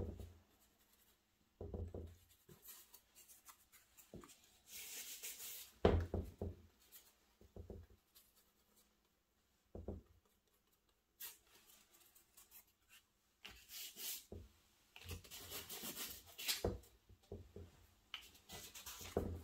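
A piece of cardboard pressed and dragged through wet paint on heavy watercolor paper over a wooden board: scattered soft taps and rubs, with a few longer scraping stretches toward the middle and later on.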